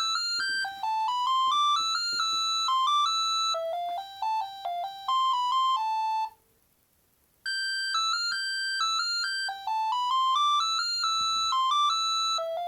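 Bird S296 mobile phone ringing with a polyphonic ringtone: a melody of bright electronic notes plays for about six seconds, stops for about a second, then starts again from the top.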